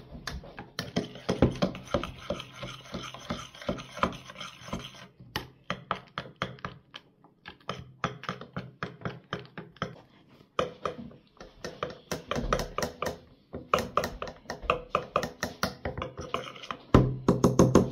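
A metal utensil beating batter in a stainless steel pot: rapid, uneven clinks and scrapes against the pot's side and bottom, several a second, louder near the end.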